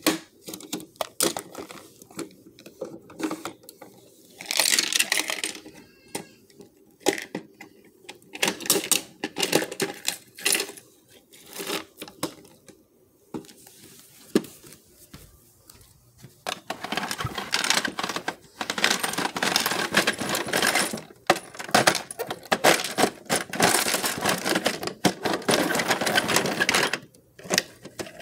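Plastic toy garbage truck and toy wheelie bins being handled and clattered together: scattered sharp clicks and knocks, then a long stretch of dense, rapid plastic rattling and clicking that starts about halfway through and stops shortly before the end.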